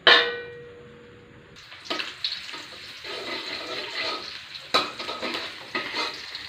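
A sharp metallic clang that rings briefly, then sliced shallots sizzling in hot frying oil from about a second and a half in, with scattered clicks and scrapes of a utensil stirring in the pan.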